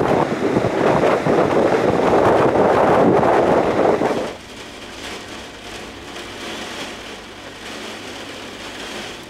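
Gusty wind buffeting the microphone over surf breaking on a beach. About four seconds in it cuts off suddenly, leaving a much quieter steady hiss.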